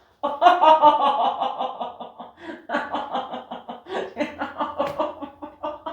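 A person laughing hard, a long run of quick breathy bursts with a short pause about two and a half seconds in, in reaction to a chiropractic adjustment just made.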